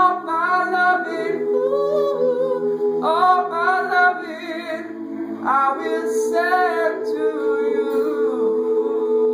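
Men's a cappella choir singing in close harmony: held chords under a higher voice line that starts three new phrases.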